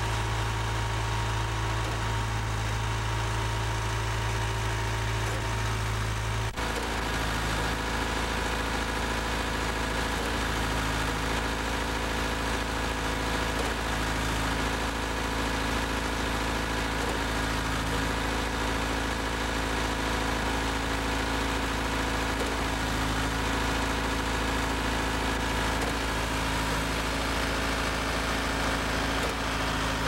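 Engines running steadily from a REED A30HP Rockmaster trailer-mounted concrete line pump working beside a ready-mix truck that is discharging pea-gravel concrete into the pump's hopper. The tone changes abruptly about six and a half seconds in.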